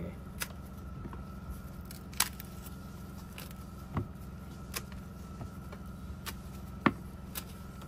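A soft, fungus-rotted kawara log being pulled apart by hand: scattered small cracks and crumbling clicks, the sharpest about seven seconds in.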